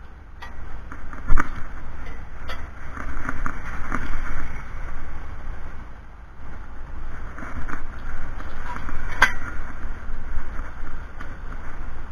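Scattered clicks and knocks of metal bracket parts and hand tools being handled during assembly, over a steady rumbling noise. The loudest knock comes about a second and a half in, with another sharp one about nine seconds in.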